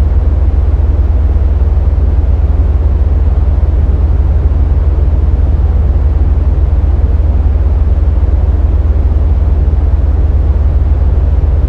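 Steady synthesized noise from an Access Virus TI synthesizer, with a strong deep rumble and a softer hiss above it, unchanging throughout.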